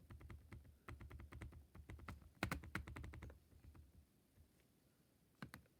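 Faint computer keyboard typing: a run of quick, light keystrokes for about three and a half seconds, then a pause, with a few more keystrokes near the end.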